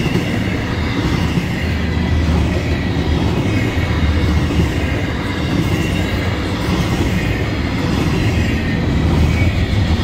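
Florida East Coast Railway double-stack intermodal freight cars rolling past at a grade crossing: the steady low rumble of steel wheels on the rails.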